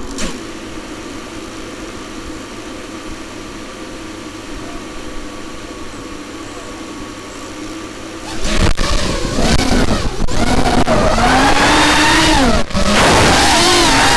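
FPV racing quadcopter's brushless motors and propellers humming steadily at idle, then about eight seconds in they spool up suddenly to a loud whine at launch, its pitch rising and falling with the throttle, mixed with wind rush on the drone's onboard camera.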